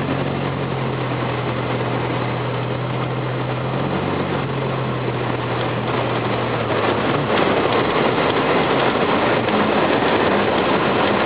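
A four-wheel-drive vehicle driving through snow: a steady engine drone under a continuous rushing noise of tyres and travel. About seven seconds in the engine tone fades and the rushing noise grows a little louder.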